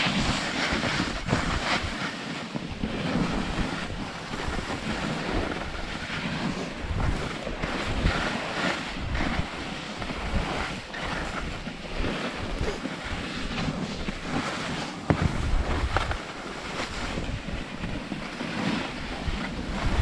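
Wind buffeting the microphone at speed down a ski slope, mixed with the steady hiss and scrape of edges carving snow, with a few sharper scrapes or bumps.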